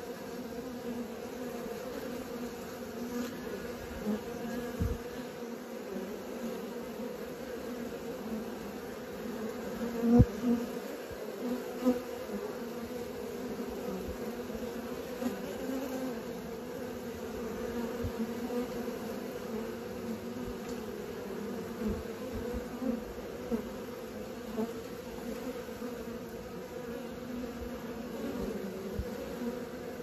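A swarm of honeybees at the hive entrance buzzing in a steady hum, typical of young bees making orientation flights. A few short low thumps cut through the hum, the loudest about ten seconds in.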